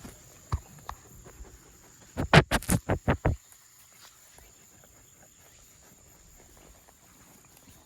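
Steady high-pitched insect trill, broken a little over two seconds in by a quick run of about eight sharp, loud knocks lasting about a second.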